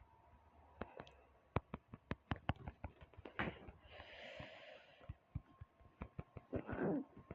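Faint scattered small clicks and taps, with a person's short breathy exhale or sniff about four seconds in.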